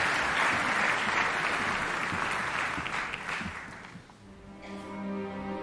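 Audience applause fading out over about four seconds, then the orchestra's strings enter with a held chord near the end.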